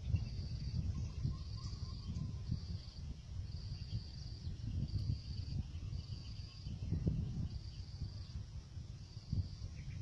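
An insect trilling high and thin in short bursts of about half a second, roughly once a second, over a steady low rumbling noise.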